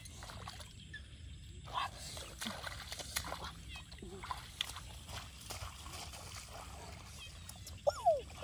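Bare feet splashing and squelching through shallow water and wet grass, with scattered small splashes. A short, loud cry falling in pitch cuts in near the end.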